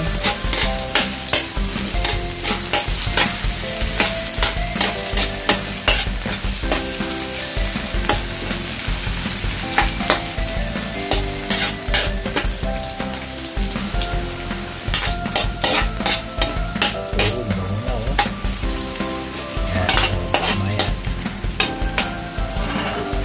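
Ginger and garlic sizzling in hot oil in a metal wok, stirred with a metal spatula that scrapes and clicks against the pan again and again.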